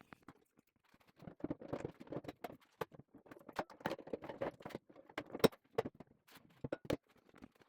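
Irregular clicks, knocks and light rattles of parts and tools being handled, with one sharp click about five and a half seconds in.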